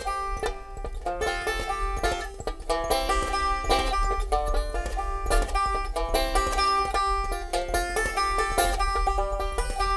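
Resonator banjo played solo, a quick, steady run of picked notes: an instrumental break between the verses of a song.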